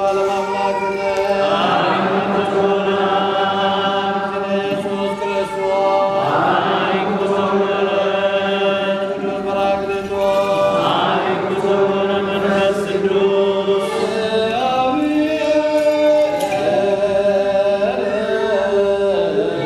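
Liturgical chant of the mass, sung by several voices together in long held notes, swelling about every four to five seconds, with the melody moving more freely near the end.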